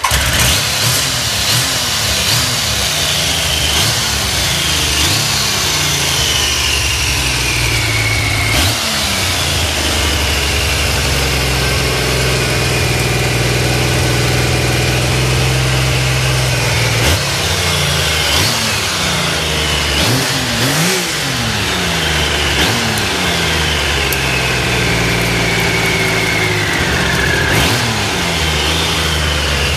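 Triumph Sprint 900's three-cylinder engine, just started on the first press of the starter, running through its exhaust at a steady idle broken by several throttle blips that rise and fall in revs, two in quick succession about two-thirds of the way through.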